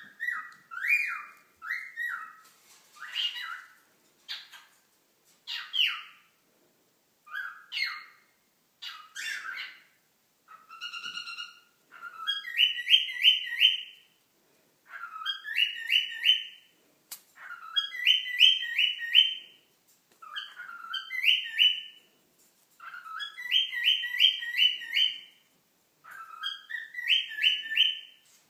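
Cockatiel whistling: scattered rising chirps at first, then from about halfway through a short phrase repeated over and over, a rising note followed by a quick run of four or five notes, about every three seconds.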